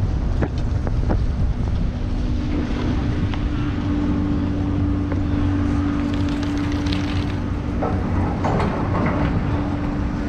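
Garaventa-CTEC Stealth II chairlift drive terminal running: a steady hum of several low pitches from the drive machinery comes in about two seconds in and holds. Heavy wind noise on the microphone runs underneath, with scattered light clicks.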